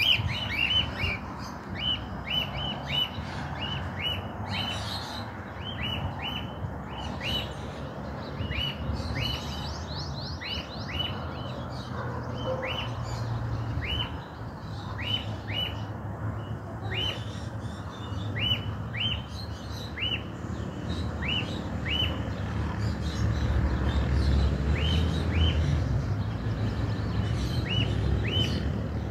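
A bird chirping over and over in short, high notes, about one or two a second, sometimes in quick pairs or threes. A low rumble swells up about two-thirds of the way through.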